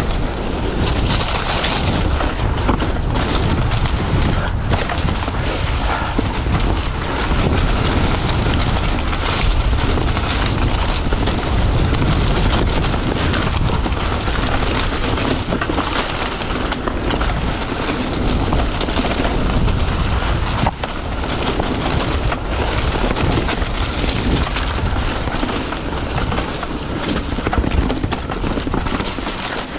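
Wind buffeting the microphone of a mountain bike riding down a dirt trail, over the rumble of the tyres on dirt strewn with leaves and sticks, with occasional sharp knocks from bumps.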